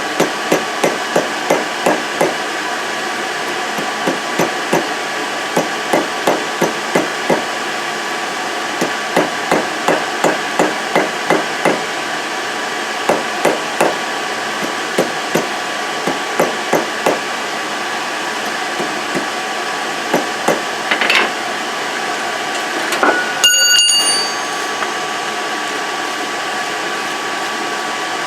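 Hand hammer tapping a hot billet of chainsaw chain on the anvil, light blows about two a second in bursts separated by short pauses, compressing the layers before forge welding. A steady hum of the forge's air blower runs under it, and near the end a single ringing clang of metal.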